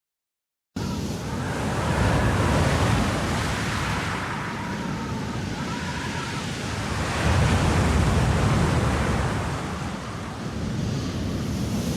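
Wind sound effect: a gusting roar that begins abruptly about a second in and swells and eases twice. A faint whistle comes through in the middle.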